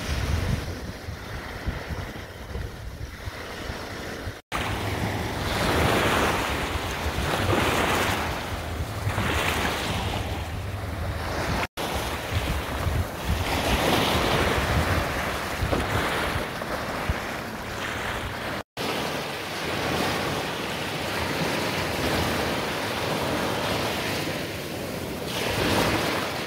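Small waves breaking and washing up a sandy shore, swelling and fading every couple of seconds, with wind buffeting the microphone. The sound drops out briefly three times.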